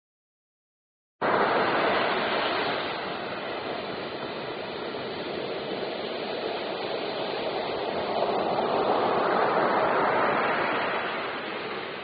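Ocean surf: waves breaking and washing up a beach in a steady rush. It cuts in suddenly about a second in, loudest at first, then swells again with another breaking wave and eases off near the end.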